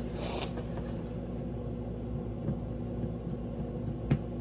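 Steady low mechanical hum with a few constant tones, a short hiss at the start and a single sharp click about four seconds in.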